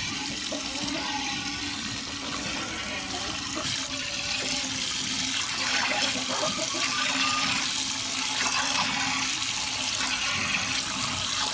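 Streams of milk squirting from a cow's teats into a stainless steel pail during hand milking, making a steady hiss as they hit the foam of milk already in the pail.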